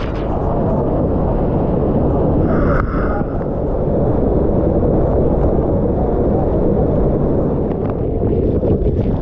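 Steady rush of a large waterfall at close range, dense and heaviest in the low end.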